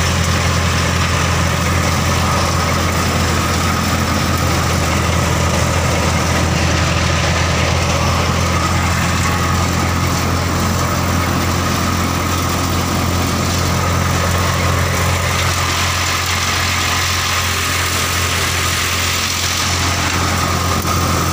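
Massey Ferguson 1035 tractor's three-cylinder diesel engine running steadily under load, driving a thresher that is threshing mustard. The low drone stays constant, with a steady high whine above it.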